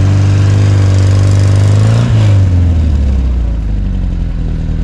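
A vehicle engine revving hard while a Volkswagen bus stuck in sand is towed out on a strap: the revs climb, hold high for about two seconds, then fall away to a lower, steady run.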